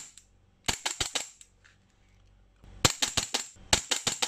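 VFC G42 gas blowback airsoft pistol firing in quick semi-automatic strings, with the slide cycling on each shot: about a dozen sharp, snappy cracks in three bursts of four or five shots, with short pauses between the bursts.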